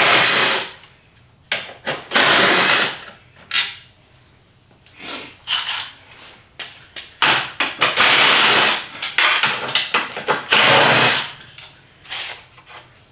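A handheld power tool running in several bursts of about a second or two each, separated by short clicks and pauses: bolts being driven out during a car teardown.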